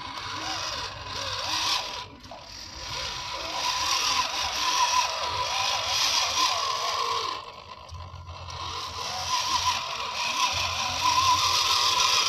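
Drivetrain of a handmade 1/10-scale RC rock crawler whining under a steady hiss, its pitch wavering up and down with the throttle. It drops away briefly about eight seconds in, then comes back louder.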